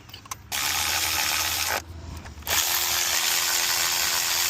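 Power tool running in two bursts, about a second and then nearly three seconds with a steady hum under it, driving new spark plugs down into the cylinder head.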